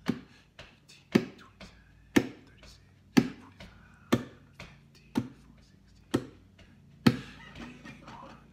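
Muted percussive hits on an acoustic guitar keeping the beat: a sharp knock about once a second, with a lighter one between each.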